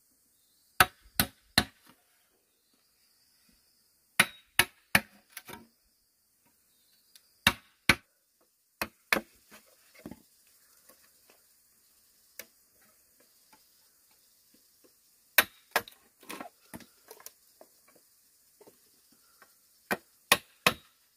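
Sharp knocks of a hand tool striking bamboo, in short runs of two to four blows with pauses between.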